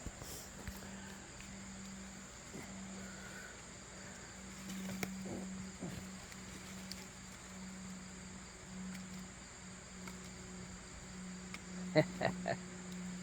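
Insects singing in one steady high-pitched drone, faint, under a low steady hum. Three sharp knocks come close together near the end.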